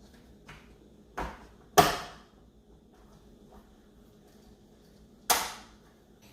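Three sharp knocks: one about a second in, a louder one just after it, and a third near the end, each dying away quickly.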